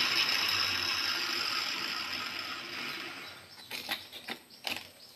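Handheld electric marble cutter's whir fading away over about three seconds, followed by several light clicks and knocks of cut marble tile pieces being set against each other.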